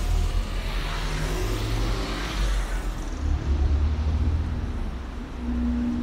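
A car driving slowly past close by on the street: tyre noise fades out in the first few seconds, then a low engine rumble, with a steady hum coming in near the end.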